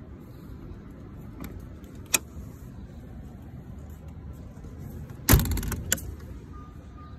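Metal generator canopy door being unlatched and swung open: a sharp click about two seconds in, then a loud thump with a short rattle of metal clicks just after.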